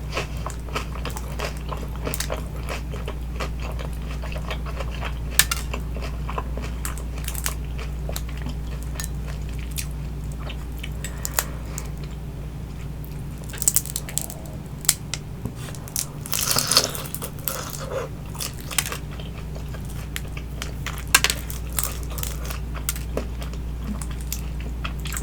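Close-miked biting and chewing of crispy baked vegetable spring rolls: wet chewing dotted with sharp crunches of the wrapper, louder bursts of crunching a little over halfway in and again later, over a steady low hum.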